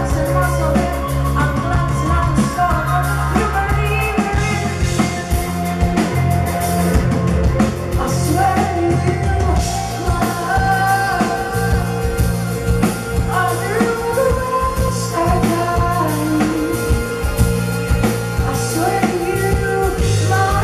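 Live rock band playing: a woman singing into a microphone over electric guitar and a drum kit, with steady low bass notes.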